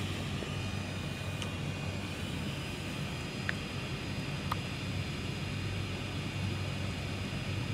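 Steady low outdoor background rumble with a faint hum, and a few faint short chirps about a second and a half, three and a half and four and a half seconds in.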